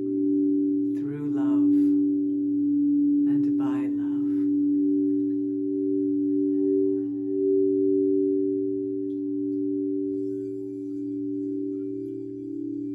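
Singing bowl sounding a sustained low hum of two close tones with a slow wobble, swelling and easing gently.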